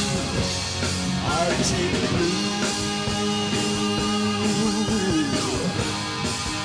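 Rock music: held chords under a lead line that slides up and down in pitch.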